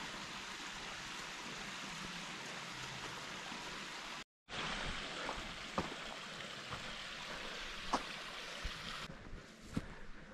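Steady, even hiss of running water in a sandstone canyon by a rock pool. Near the end the hiss drops away, leaving a few light clicks.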